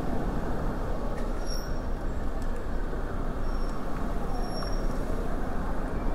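Steady rushing wind and road noise on the microphone of a bicycle riding through city traffic, heaviest in the low end.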